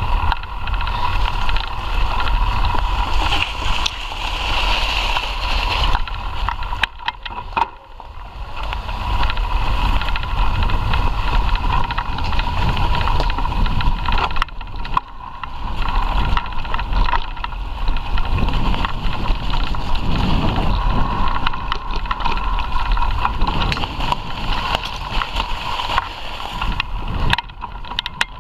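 Mountain bike rolling fast over a dirt forest trail: steady rumble and rattle of tyres and frame on the rough ground, with wind buffeting the microphone and a few sharp knocks over bumps.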